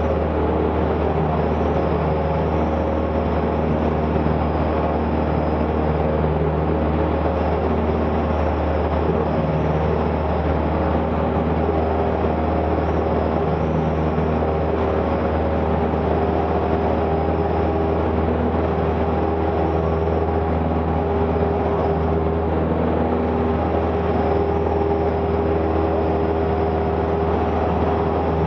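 Cessna 172's piston engine and propeller running steadily, heard from inside the cabin during the climb after takeoff: a constant deep drone with a hiss of airflow over it.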